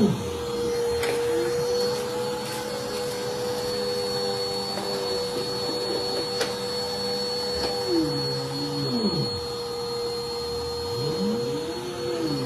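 Dirt Devil Vigor Cyclonic Pet vacuum cleaner running, its motor giving a steady whine over a rush of air. Low tones rise and fall briefly a little past the middle and again near the end.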